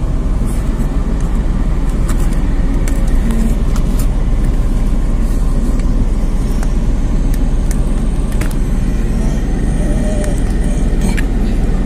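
A vehicle on the move: steady, loud low road and engine rumble, with scattered sharp clicks and knocks.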